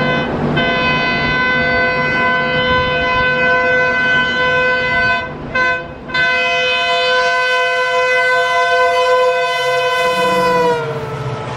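EMD WDP-4D diesel locomotive's air horn held in a long blast, broken twice briefly, then dropping in pitch near the end and cutting off. Engine and train rumble run underneath.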